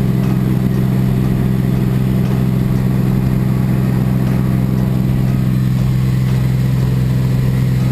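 Light high-wing aircraft's engine and propeller running steadily during the climb, a constant drone heard from inside the cabin.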